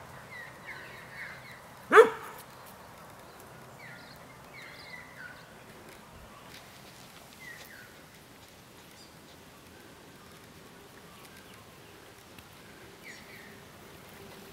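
A dog barks once, loudly and sharply, about two seconds in. Small birds chirp faintly in short calls that fall in pitch.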